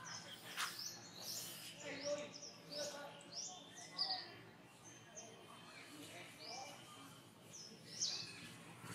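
Birds chirping: a run of short, high, falling calls repeated every half second or so, over faint background voices.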